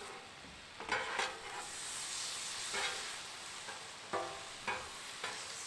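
Steak pieces sizzling on a Blackstone flat-top griddle, with several short scrapes of a metal spatula on the steel top as the meat is stirred.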